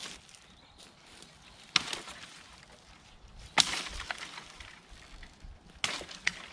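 Three sharp axe strikes into the branches of a felled green sycamore maple, about two seconds apart, with small cracks of wood between them. The axe is a Tasmanian pattern felling axe being used to limb the tree.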